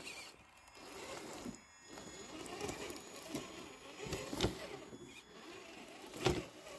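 Traxxas TRX-4 scale RC crawler's small electric motor and geared drivetrain running as the truck crawls slowly over tree roots, with two sharp knocks, one about four and a half seconds in and one near the end.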